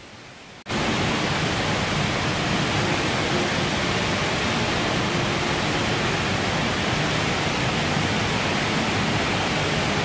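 Jewel Changi's Rain Vortex indoor waterfall: a heavy, steady rush of water pouring from the roof opening into its basin. It comes in suddenly under a second in and stays even and loud.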